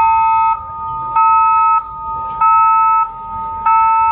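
Live electronic music played loud over a concert sound system: a steady, high two-note electronic tone with a harsh, buzzing pulse switched on over it for about half a second roughly every second and a quarter, four times.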